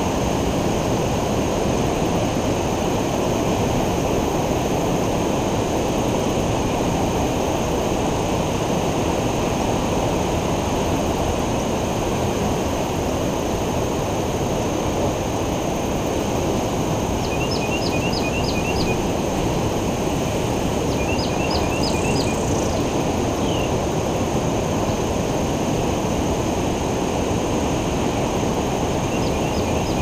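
Ocean surf breaking on a beach: a steady low rush. A bird chirps in quick runs of about five or six notes, three times in the second half.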